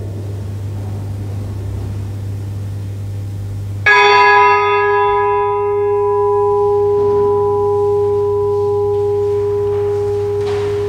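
A bell struck once about four seconds in, with a bright clang that dies quickly into a long, steady ringing tone, over a steady low hum.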